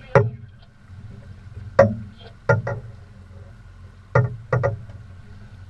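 Five sharp thumps, the last two close together, over the low steady hum of a boat motor running, while a hooked salmon is played at the stern.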